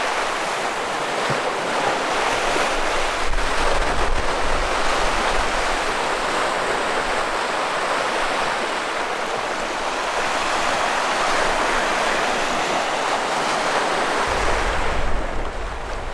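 Small Lake Michigan waves washing and breaking against an ice-crusted shore: a continuous rushing surf that swells and eases. Wind buffets the microphone in a low rumble for a few seconds early on and again near the end.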